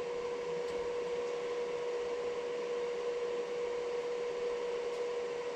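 MIG welder's wire-feed motor running steadily with the torch trigger held, pushing welding wire through the torch liner: a constant even hum over a light hiss.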